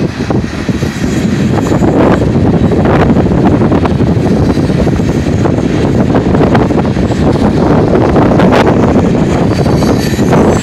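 Freight cars of a mixed freight train rolling past: a loud, steady rumble of steel wheels on the rails, broken by irregular sharp clicks and clanks, the sharpest about eight and a half seconds in.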